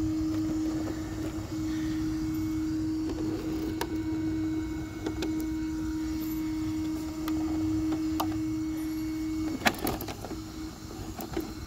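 Small electric cooling fan on an RC car's overheated speed control running with a steady hum, then a few sharp plastic clicks and knocks about nine and a half seconds in.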